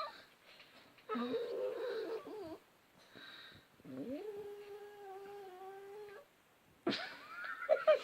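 A pet animal's drawn-out vocalizing: a wavering call lasting about a second and a half, then a long, steadily held call of about two seconds, and a rising call starting just before the end.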